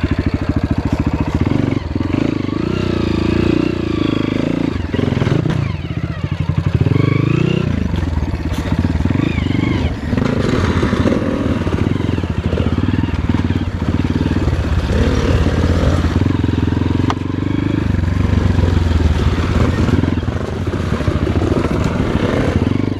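Dirt bike engine running under load, its revs rising and falling.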